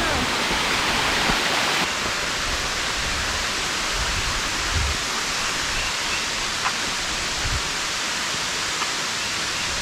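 Waterfall on a shale creek rushing steadily close by, with a few faint low bumps about halfway through.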